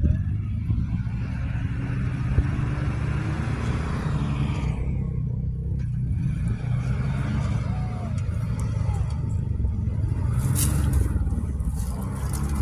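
Stock 22RE 2.4-litre four-cylinder engine of a 1987 Toyota pickup running at low speed with a steady low rumble as the truck crawls over the dirt trail, with some sharp crackles near the end.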